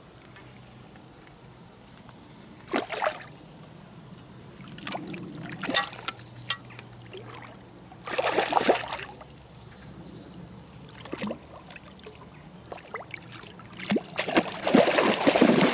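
Water splashing and sloshing at the pond's surface in several short bursts, the loudest near the end, as a hooked carp breaks the surface near the pole tip.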